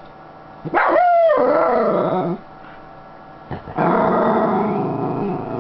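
Schnauzer giving two drawn-out "roo" vocalizations, part howl and part growl, each under two seconds, the first sliding down in pitch.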